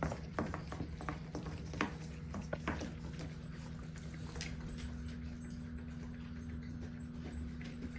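A dog licking and lapping at ice cream, a run of wet smacking clicks in the first three seconds and one more near the middle, over a steady low hum.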